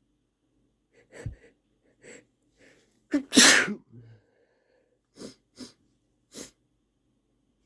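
A man sneezing once, forcefully, about three seconds in, with a few short sniffs and breaths building up before it and three quick sniffles after it.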